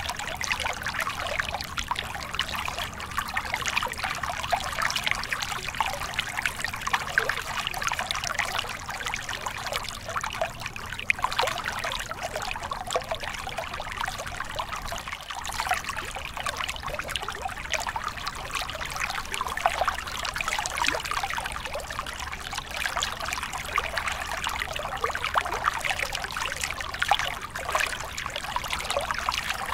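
A small mountain stream trickling and splashing over a rock step into a shallow pool: a steady babble of running water with quick, irregular splashes.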